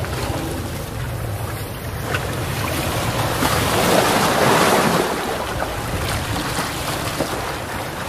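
Calm sea waves washing onto the shore. One wave swells in and breaks about four seconds in, then draws back, over a low wind rumble on the microphone.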